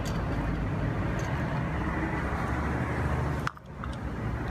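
A motor vehicle engine running nearby, a steady low drone that drops away suddenly about three and a half seconds in and then comes back more faintly.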